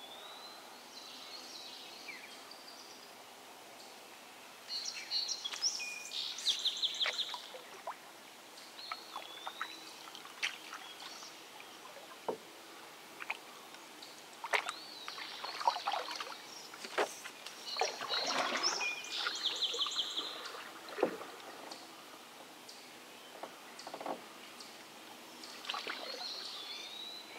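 Songbirds singing short, repeated phrases from the bankside trees, a trilling phrase twice. Scattered knocks and light water sloshing against the hull of a drifting canoe.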